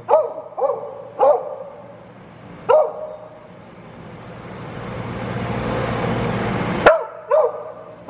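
Beagle barking in about six short, sharp barks, a demand bark for food. Between the fourth and fifth barks a rushing noise swells for about three seconds and cuts off suddenly.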